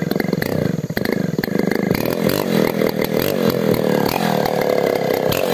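A STIHL 070 two-stroke chainsaw engine, just started, running steadily and unloaded as it warms up.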